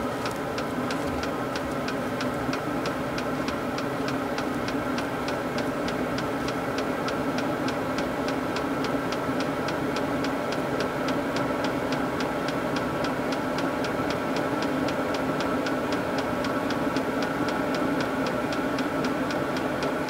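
A machine running steadily with a constant hum and a fast, even ticking of several ticks a second.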